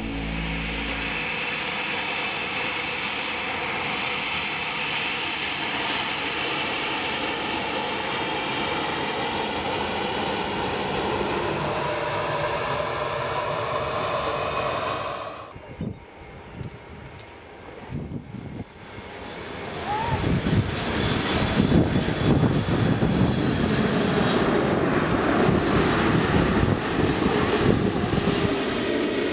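Jet airliner engines: first an Airbus A320 taxiing, its engines giving a steady whine with high tones. Then it cuts off suddenly and a quieter stretch follows. A large jet on approach with its landing gear down comes in, and its heavier rumble grows loud about two-thirds of the way through.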